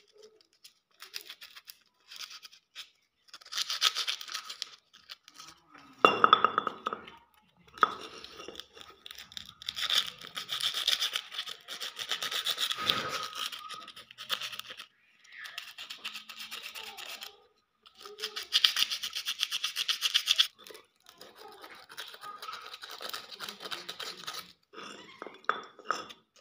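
Sandpaper rubbed by hand over a Honda CD-70's aluminium front brake plate, in quick back-and-forth strokes. It comes in bursts of a few seconds with short pauses. It is cleaning the corners that the buffing disc could not reach, before polishing.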